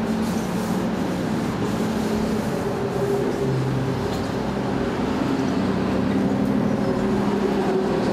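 Fire truck engine idling: a steady low hum with several held tones that shift slightly in pitch.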